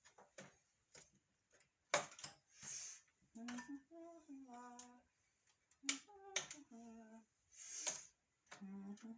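A person humming a few short, low notes under their breath, with scattered sharp clicks and taps from hardware being handled.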